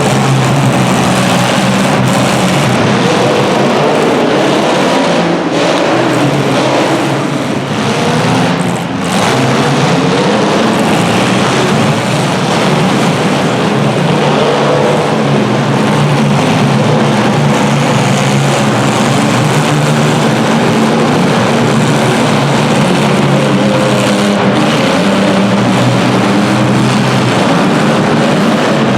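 Several compact car engines running and revving hard together, their pitches rising and falling over one another, with a short dip in loudness about eight seconds in.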